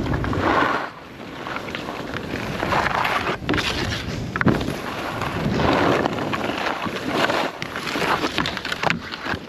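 Wind rushing over the microphone in surges, with skis hissing over snow.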